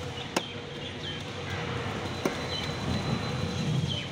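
A heavy fish-cutting knife chopping through fish into a wooden log chopping block: two sharp strikes, about half a second in and just past two seconds, over steady background noise with a few short, high, falling chirps.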